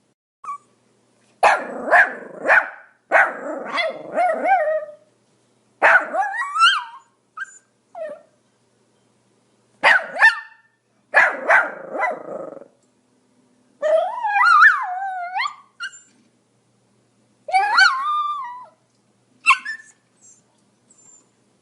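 Pomeranian barking in separate bouts of sharp, high barks with short silences between. Some barks are drawn out into longer yelping calls that waver up and down in pitch, most clearly about two thirds of the way through.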